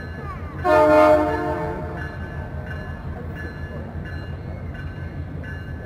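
A locomotive horn sounds one blast of about a second and a half, starting just over half a second in. It rises over the steady low rumble of freight cars rolling past on the rails.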